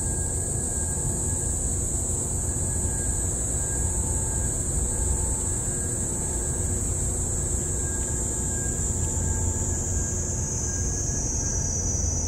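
Outdoor ambience: a steady high-pitched insect drone over a low, even rumble.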